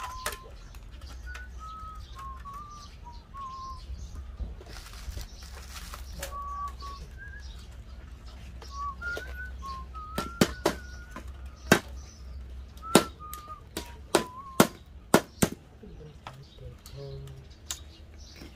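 A small hammer striking the sheet-metal frame of an old gas stove top: about eight sharp metallic taps between ten and sixteen seconds in. Birds chirp with short whistled notes throughout.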